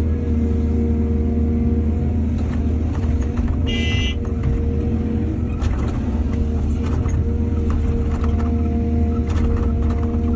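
Excavator's diesel engine running steadily at working speed, with scattered knocks and clanks and a brief high-pitched squeal about four seconds in.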